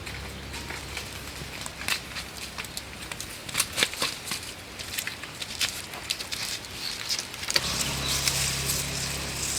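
Irregular rustling and crackling of leaves and twigs being handled and stepped on in a garden. About seven and a half seconds in, a steady low hum and hiss start up abruptly.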